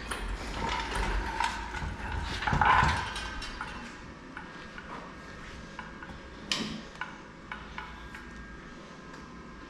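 Metal tools and car parts clinking and clanking as they are handled, busiest in the first few seconds, with one sharp knock about six and a half seconds in and a few light ticks after.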